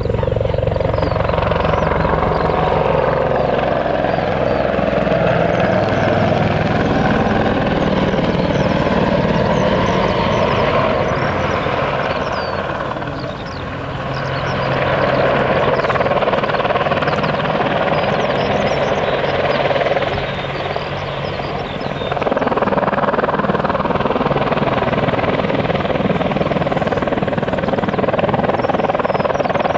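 Boeing AH-64 Apache attack helicopter in display flight: steady rotor and turbine noise, dipping briefly in loudness twice as it manoeuvres, about halfway through and again about two-thirds of the way through.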